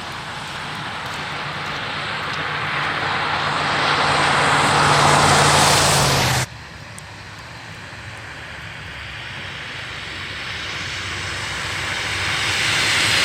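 Vehicle engine and tyre noise growing louder as a vehicle approaches, breaking off suddenly about six and a half seconds in; a second approach then builds in the same way.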